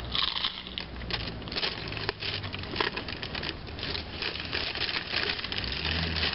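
Crisp, irregular crunching of a hard taco shell being bitten and chewed open-mouthed, with the paper wrapper crinkling.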